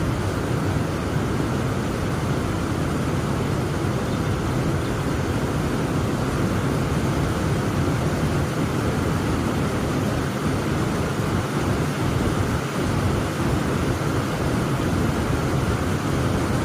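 Heavy rain pouring steadily: a dense, even rush of noise, heaviest in the low end, that holds the same level throughout.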